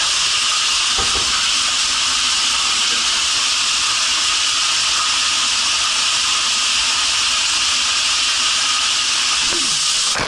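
Steady loud hiss of water spraying inside a water slide's clear launch capsule, cutting off suddenly near the end as the rider drops into the slide.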